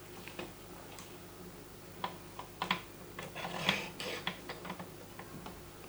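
Irregular clicks and short rattles of the BF-216 fishing line winder's parts being handled and adjusted, with a denser clatter a little past the middle.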